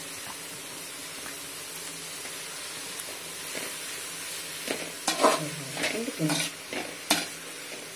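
Chopped vegetables (cabbage, carrot, beans, onion) sizzling in oil in a metal kadai, a steady hiss. From about halfway, a metal ladle scrapes and knocks against the pan in quick strokes as the vegetables are stirred.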